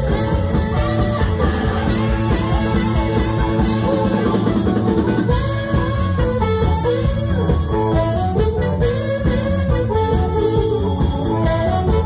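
Live blues band playing: drum kit, electric guitar and bass under a wavering melodic lead line.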